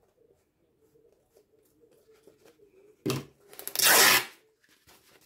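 Faint scissor snips through coffee-dyed canvas. About three seconds in, the stiff canvas rustles loudly as it is picked up and handled: a short rustle, then a longer one.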